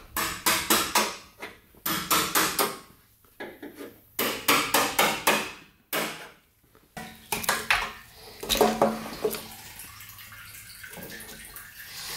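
Sharp metal-on-metal taps in several quick runs: the fuel pump lock ring on a pickup's fuel tank being knocked round with a tool to unlock it. The taps stop about three seconds before the end.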